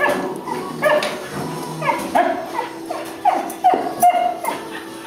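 Small dogs yipping and barking in play: a quick run of short, high yips that drop in pitch, two or three a second, with music underneath.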